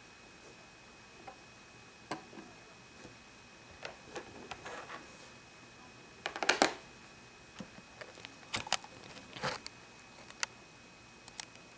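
Small plastic toy pieces being handled and set down on a table: scattered light clicks and taps, with a denser, louder cluster a little past the middle.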